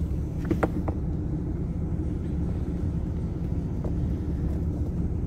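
Steady low rumble of a car driving slowly, heard from inside the cabin with the windows up. A few light clicks come just under a second in.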